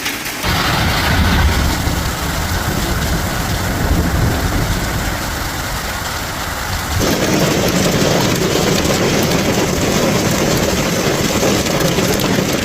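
Heavy storm downpour: a dense, steady rush of rain on surfaces with a deep low rumble under it. The sound shifts abruptly about half a second in and again about seven seconds in, where the rumble grows heavier.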